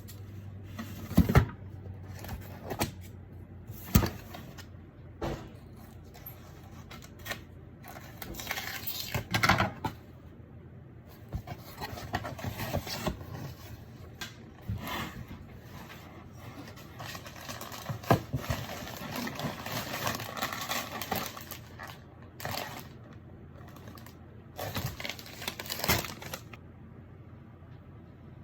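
A cardboard shipping box being opened and its paper packaging handled: a string of sharp clicks and knocks with several stretches of rustling and crinkling.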